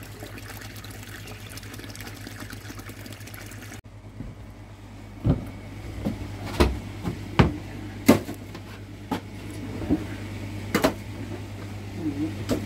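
Water running steadily out of a pond waste outlet pipe. After a cut, sharp knocks and clacks come one after another as plastic pipework is handled, over a steady low hum.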